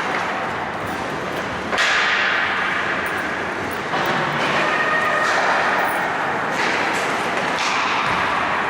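Ice hockey play on the rink: several sudden scrapes and knocks from skates, sticks and puck, about four in all, over steady arena noise.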